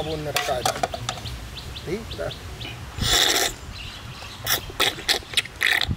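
A man slurping sugar syrup straight off a steel plate: a longer noisy sucking pull about halfway through, then a run of short, sharp slurps. Faint chirping calls in the first second.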